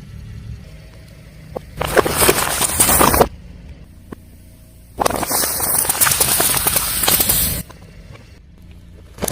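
A car tyre rolling over and crushing crunchy objects: two bursts of dense crackling and cracking, the first about a second and a half long and the second about two and a half seconds, each cutting off suddenly. A car's low engine rumble sits underneath.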